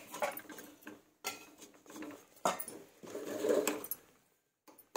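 A spoon stirring and scraping damp flour in an aluminium pot, with a few sharp knocks against the pot's sides.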